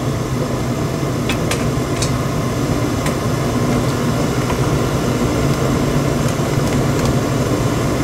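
Induced-draft 80% AFUE gas furnace running with its burners lit: a steady hum from the inducer and circulating blower, with a few faint ticks in the first few seconds. It is running normally, without unusual clanks or bangs from the inducer or blower.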